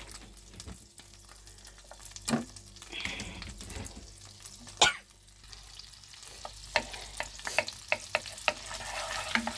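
Chopped garlic sizzling in melted butter in a frying pan, with sharp knocks and scrapes of a wooden spoon against the pan as it is stirred; one loud knock about halfway, then a quick run of knocks near the end.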